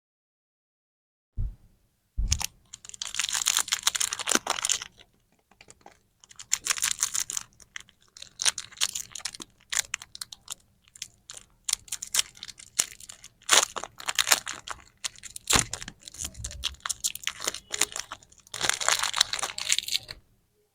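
Plastic candy and lollipop packaging being handled and torn open in close-up: dense crinkling and crackling with sharp clicks, in bursts separated by short pauses.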